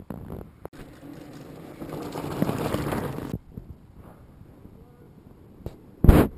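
Fat bike rolling over a snowy trail: a rush of tyre and wind noise swells, then stops abruptly. A short, loud bump or knock near the end.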